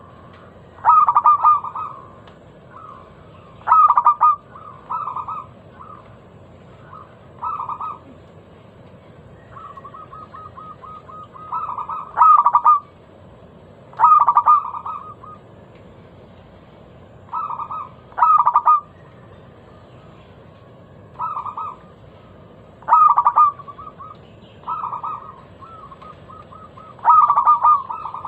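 Zebra dove (perkutut) singing: short phrases of quick staccato cooing notes, repeated every second or two.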